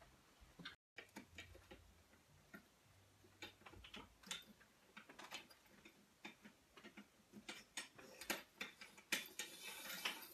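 Faint, irregular clicks and rustles of fabric curtain panels, cut from a tablecloth, being handled and hung on a curtain rod, with a short stretch of fabric rustle near the end.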